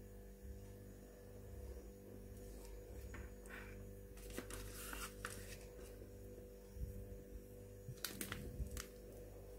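Faint rustling and light clicks of plastic-foil face-mask sachets and wrapped bath bombs being moved about on a wooden table, in short bouts about a third of the way in and again near the end, over a steady low electrical hum.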